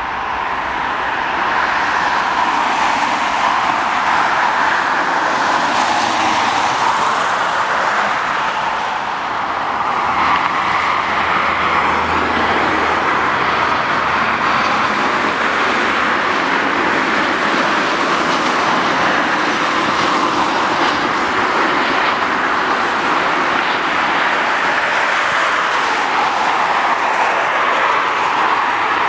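Steady jet engine noise in two parts: a Boeing 717's rear-mounted turbofans at takeoff thrust as it rotates and lifts off, then, after a short dip about nine seconds in, an Airbus A320's engines at approach power as it comes in to land.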